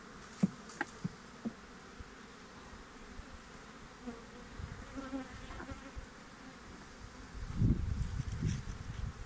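Honeybees buzzing around an open hive, with a few sharp clicks of a metal hive tool on the wooden frames in the first second and a half. A low rumble of handling noise rises near the end.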